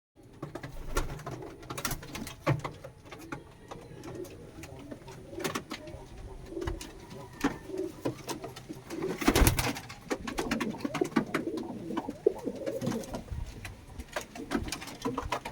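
Pigeons cooing over and over, with scattered sharp clicks and knocks and a louder burst of noise about nine seconds in.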